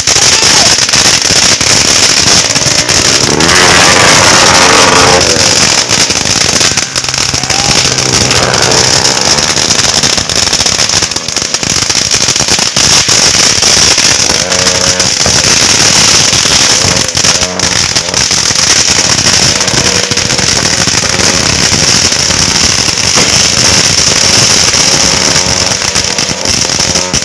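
Ground fireworks fountains spraying sparks with a loud, continuous high hiss and crackle, with sharp pops scattered throughout.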